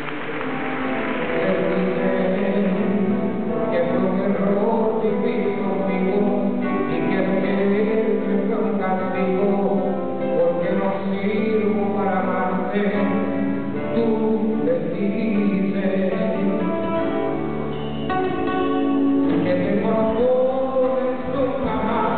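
Live music led by a plucked acoustic guitar, playing steadily throughout.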